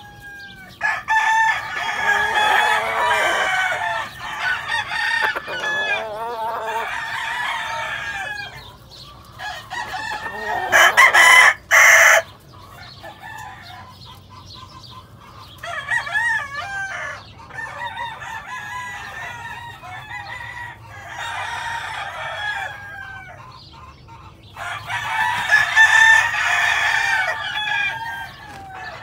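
Gamecocks crowing over and over in overlapping bouts, with some clucking. The loudest sound is a burst about a third of the way through.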